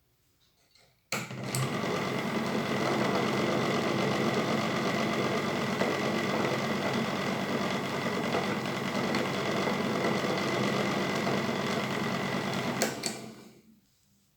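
A small electric motor-driven machine switches on with a click and runs steadily with a high whine for about twelve seconds, then is switched off and winds down.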